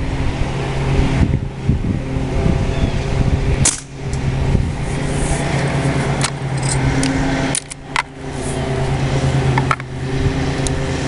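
A steady motor hum runs under several sharp cracks and clicks, spread over the stretch: shots and lever cycling of a lever-action CO2 BB rifle that ejects shells.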